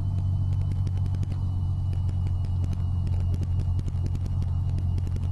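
Cessna 172's piston engine and propeller droning steadily inside the cockpit in flight, with a scatter of faint clicks over the drone through the middle.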